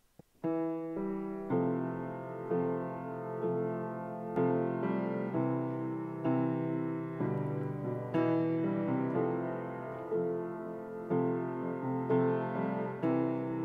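Piano playing a slow introduction. Full chords are struck about once a second and each one rings on and fades before the next, with no voice yet.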